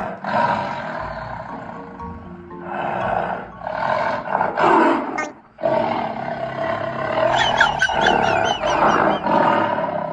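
Pomeranian growling in long, rough stretches with short breaks between them, with background music.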